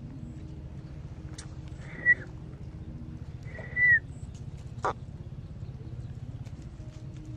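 Baby macaque giving two short, high-pitched calls, the second longer and dropping in pitch at its end, over a steady low rumble. A sharp click comes just before the end.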